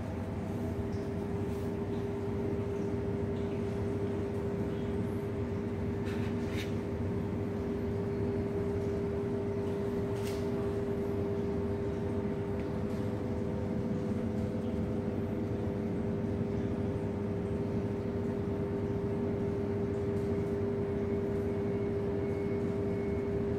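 Steady machine hum with a constant tone, the running background noise of a commercial kitchen's equipment, with a faint click about six seconds in and another about ten seconds in.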